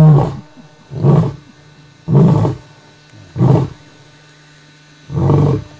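Male lion roaring at close range: the end of a full roar, then four short, deep grunts about a second or more apart, the grunting tail of a roaring bout.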